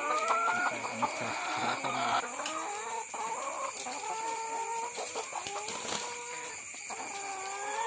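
Caged brown laying hens clucking and giving drawn-out, sliding calls again and again while a hen is taken hold of in its cage.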